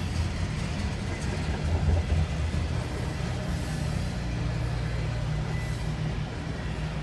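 Freight train rolling past at a crossing: a steady low rumble of the cars going by, heard from inside a car, with a few heavier thumps in the first couple of seconds.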